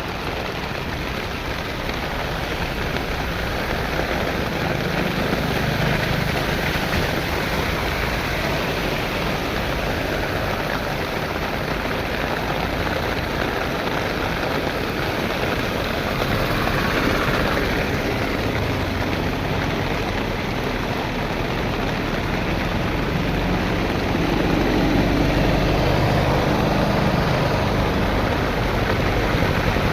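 Heavy monsoon rain pouring down steadily: a dense, even hiss that gets a little louder near the end.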